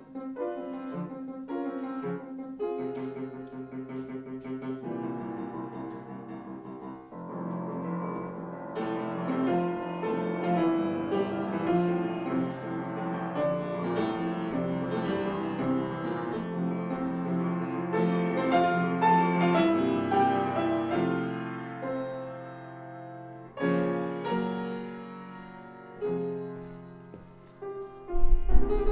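Piano music playing, notes struck in a steady flowing pattern, a classical-style soundtrack.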